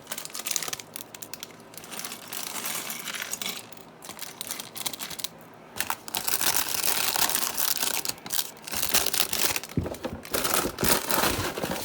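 Plastic LEGO parts bags crinkling and rustling as they are handled and pulled open, with small clicks and knocks, busiest in the second half.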